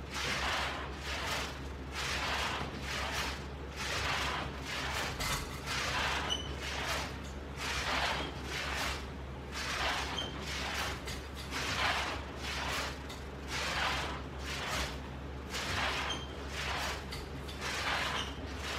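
A person breathing hard in a steady rhythm, about one breath a second, while straining through ab-roller rollouts, over a steady low electrical hum.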